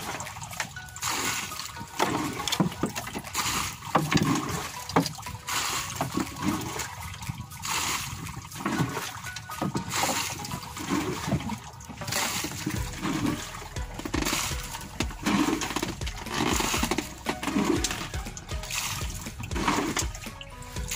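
Water lapping and sloshing against the hull and outriggers of a small outrigger boat in irregular surges, with music playing faintly underneath.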